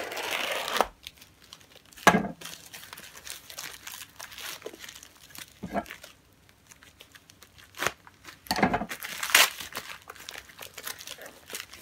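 Parcel packaging being torn open and crinkled by hand, in irregular bursts of rustling and ripping.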